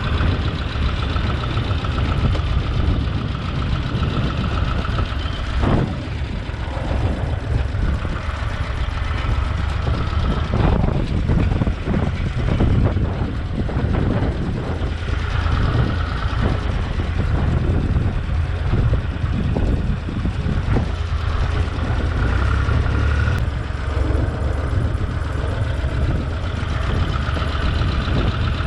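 Tractor engine running steadily under load while a mulcher shreds vine prunings, with scattered short knocks and rattles from the chopping.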